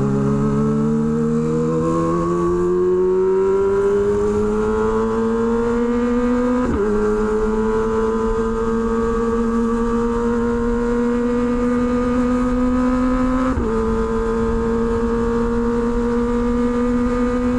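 Kawasaki Ninja ZX-25R's inline-four running through an SC Project H2 aftermarket exhaust under acceleration. The pitch climbs steadily and drops sharply at two upshifts, about a third and two-thirds of the way in.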